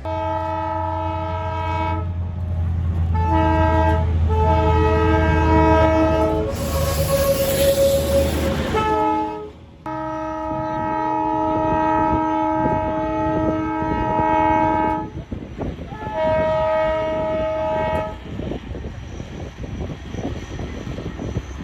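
Darjeeling Himalayan Railway narrow-gauge toy train sounding several long blasts of its horn, with a loud hiss about seven seconds in, over a low rumble and then the clatter of wheels on the track.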